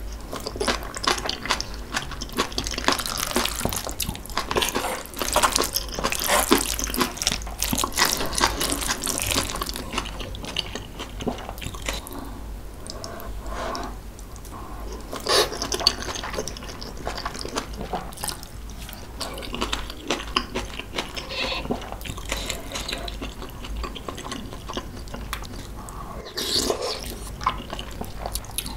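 Close-miked chewing and mouth sounds of a person eating spicy kimchi tuna rice, made up of many small, irregular clicks and crackles.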